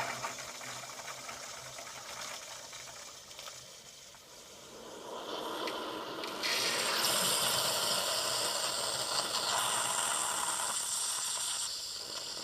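Bosch Tassimo pod machine's pump running as it dispenses into the cup, then a louder hiss from about six and a half seconds that eases off near the end as the brew finishes.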